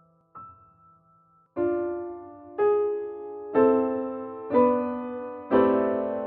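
Slow solo keyboard music with a piano-like sound: a soft high note, then full chords struck about once a second, each left to ring and fade.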